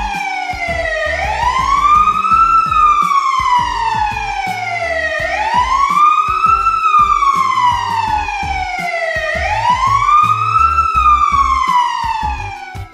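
Wailing emergency siren sound effect, standing in for a fire truck's siren: three slow cycles, each a quick rise in pitch followed by a longer, gradual fall. Light background music plays underneath.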